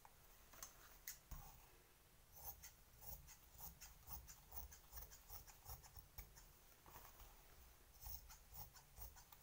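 Scissors snipping through blouse cloth in a run of faint, short cuts, about two or three a second, as a fabric strip is cut out along a chalk line.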